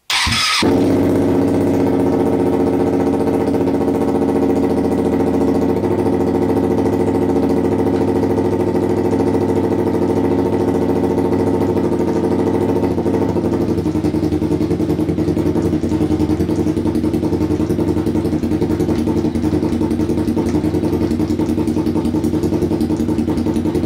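Hyosung GV250 250 cc V-twin motorcycle engine, in a mini bike frame, catching right at the start and then running steadily at a fast idle. Its sound shifts a little about halfway through as it is put into gear with the rear wheel spinning freely. Its beat sounds more like a single cylinder than a V-twin, which makes the owner wonder whether it is firing on only one cylinder.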